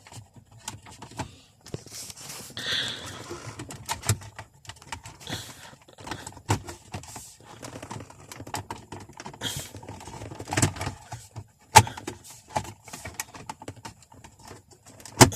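Irregular clicks, taps and rustles of plastic car trim, connectors and wiring being handled and fitted, with two sharper clicks, one about twelve seconds in and one at the very end.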